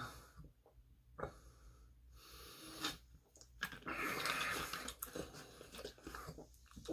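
A person breathing out heavily after a long drink of soda: one long breathy exhale in the middle, with a few faint clicks before it.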